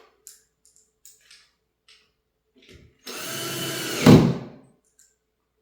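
Power drill driving a screw into door hardware: one run of about a second and a half, a few seconds in, that grows louder as the screw seats. Before it come a few light clicks of the screw and bit being handled.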